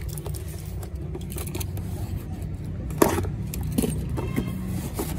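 Keys jangling and scraping as they are used to slit the packing tape on a cardboard box, with scattered clicks and a sharper knock about three seconds in, over a steady low hum.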